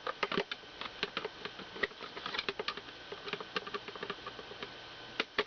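Irregular light clicks, taps and rattles of hard plastic being handled: a small portable mini fridge and its packaging being turned over and looked at.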